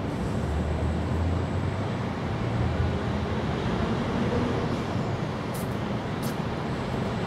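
Steady outdoor background noise, with a low rumble for the first few seconds and two faint clicks near the end.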